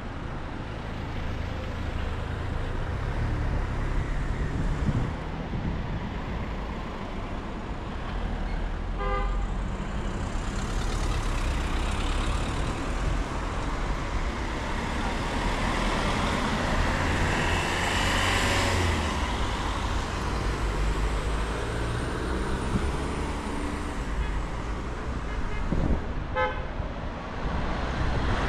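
City street traffic: cars and other vehicles driving past, one going by louder around the middle. A short car-horn toot about nine seconds in and another near the end.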